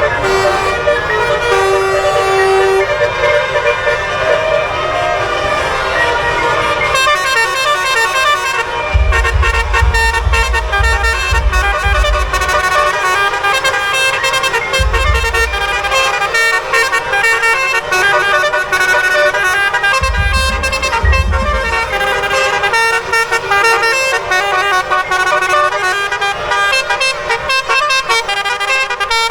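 Several Indonesian bus 'telolet' horns, multi-tone musical air horns, sounding together and playing overlapping tune-like sequences of notes. A deep rumble comes in and fades three times.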